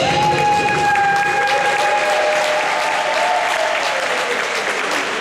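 Audience applause with cheering, including one long held whoop that falls away after about two seconds, as the music stops at the start.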